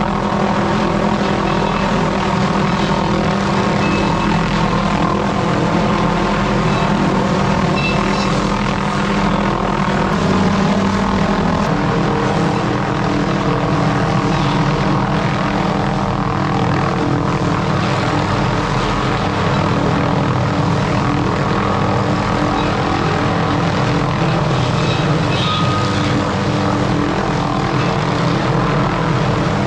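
A motor engine running steadily without pause, its pitch settling slightly lower about eleven seconds in.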